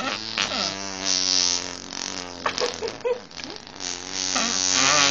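Drinking straws blown to make a fart-like noise: a series of long, wavering blasts with short breaks, getting louder near the end.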